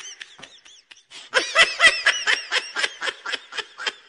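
High-pitched laughter: a rapid string of short 'ha' pulses, about five a second, starting about a second in and tapering off toward the end.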